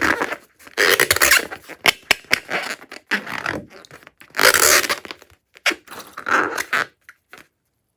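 Crunchy slime being squished and worked, in irregular bursts of crackling and squelching that stop about seven seconds in.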